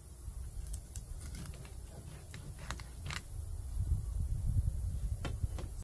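Knife cutting a pink salmon into steaks on a cutting board: scattered light clicks and taps, with dull thumps that grow louder about four seconds in.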